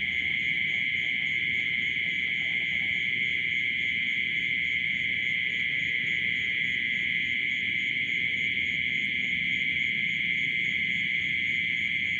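Steady high-pitched chorus of insects such as crickets, with a fainter fast, even pulsing above it.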